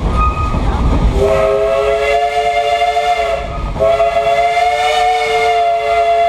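Steam locomotive's whistle sounding several notes at once, in two long blasts with a brief break between them, over the low rumble of the moving train.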